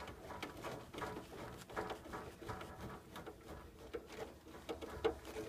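Hand screwdriver driving screws into the sheet-metal chassis of a Takagi tankless water heater, with faint, irregular clicks and scrapes of metal.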